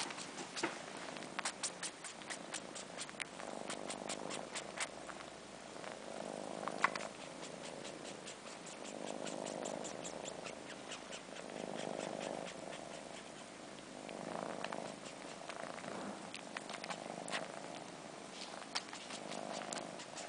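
Kittens purring, the purr swelling and fading with each breath about every two to three seconds. Over it come quick wet sucking and slurping clicks, densest in the first few seconds, as a kitten suckles on fur the way it would nurse from its mother.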